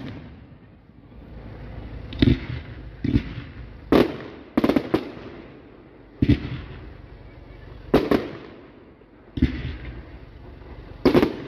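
Aerial firework shells bursting, about ten sharp bangs at irregular intervals, some in quick pairs, each trailing off in a rolling echo.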